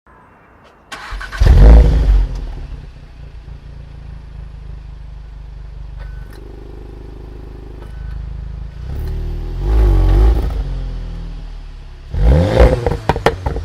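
2017 VW Golf R's turbocharged 2.0-litre four-cylinder through an Akrapovič exhaust, started about a second in with a loud flare of revs, then settling into a steady idle. It is blipped once about ten seconds in, then revved again near the end with crackles and pops from the exhaust.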